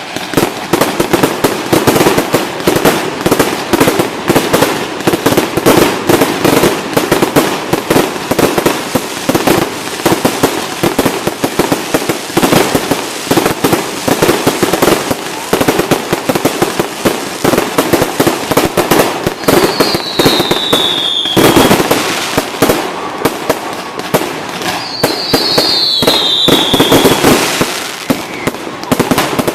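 Fireworks display going off without a break: dense, rapid bangs and crackles one on top of the other. Two whistling fireworks are heard falling in pitch, one about two-thirds of the way through and another near the end.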